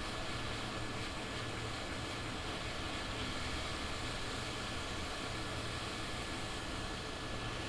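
Steady blowing hiss from a running air blower, with a thin constant whistle and a low hum underneath.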